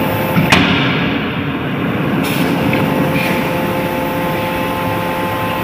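A 31.5 kJ closed-die drop forging hammer strikes once, sharply, about half a second in, as the ram comes down on the hot workpiece in the die. Its hydraulic drive keeps up a steady machine noise with faint steady tones underneath.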